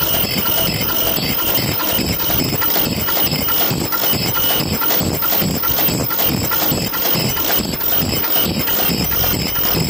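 Automatic KF94 fish-shaped mask making machine running at production speed: a steady mechanical clatter with an even rhythm of short strokes, roughly two to three a second.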